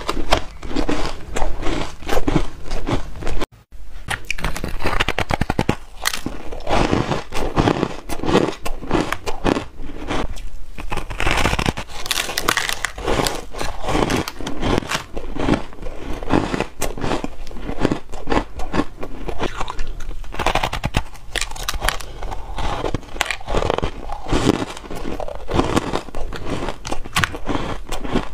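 Close-miked biting and chewing of frost-covered ice: dense, crisp crunching and crackling. A short break about three and a half seconds in.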